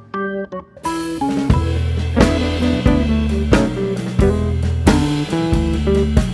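Background music: a band track with guitar, bass and drum kit keeping a steady beat, starting in full about a second in after a few sparse notes.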